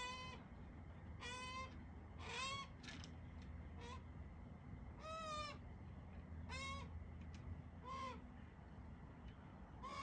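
Australian magpie giving a run of short, whining, bleat-like calls, about seven of them, one every second or so.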